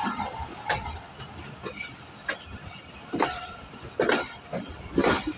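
Passenger coach wheels clacking over rail joints and points at low speed, heard from aboard the moving train: irregular heavy clunks about once a second over a steady rumble.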